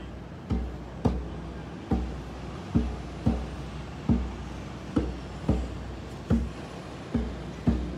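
A hand drum beaten in a slow, steady pulse of deep, booming beats, about one a second, some coming in quick pairs.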